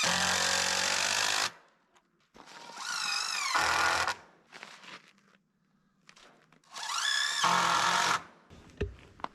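Power drill driving screws into wood: three separate runs, each spinning up with a rising whine, with a few knocks near the end.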